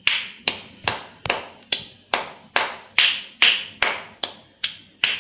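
Pestle pounding ginger and black peppercorns in a small mortar: a steady run of sharp strikes, about two and a half a second, each with a brief ring, crushing them coarsely rather than to a paste.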